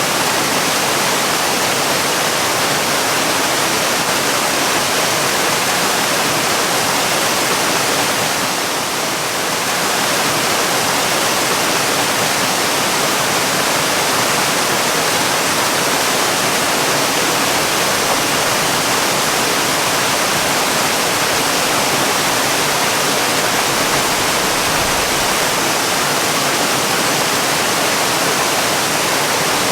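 Waterfall: a steady, dense rush of falling water. It dips slightly for a moment about nine seconds in.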